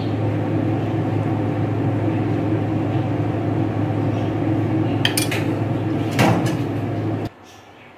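A metal spoon scraping and clinking as it spreads sauce over pizza dough in a metal pizza pan, with two sharp clinks about five and six seconds in. Under it runs a steady low hum, which cuts off suddenly near the end.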